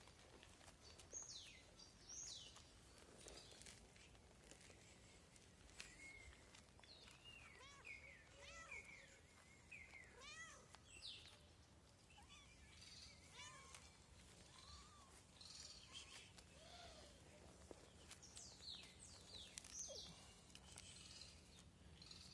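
Faint chirping of small birds, with short meows from a cat now and then.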